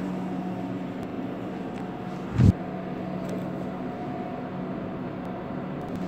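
Steady machinery hum with a constant low drone, and one short, loud low thump about two and a half seconds in.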